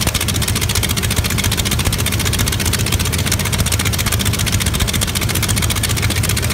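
Yakovlev Yak-52's freshly installed nine-cylinder radial engine idling with its propeller turning, a steady, even beat of exhaust pulses.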